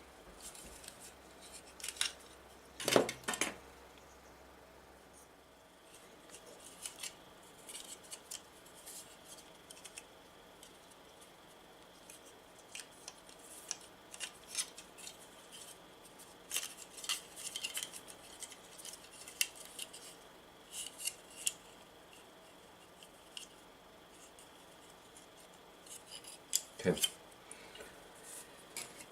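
Small hand tools and parts being handled at a workbench: scattered short clicks and snips, the loudest about three seconds in.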